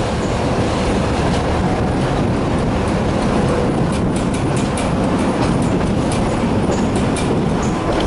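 Tatra tram running along the track, heard from aboard: a steady rumble, with a run of sharp clicks and rattles from the wheels over the rails in the second half.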